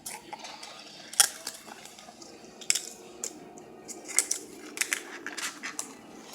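Small hard objects being handled: irregular sharp clicks and knocks, about a dozen, the loudest about a second in.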